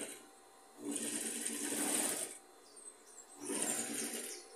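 Singer sewing machine stitching through fabric in two short runs, the first about a second and a half long, then a pause, then a second run of about a second.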